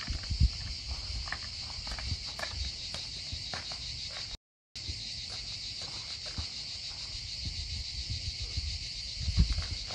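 Steady, high-pitched outdoor insect drone, with scattered light clicks and low thumps. The sound cuts out completely for a moment about four and a half seconds in.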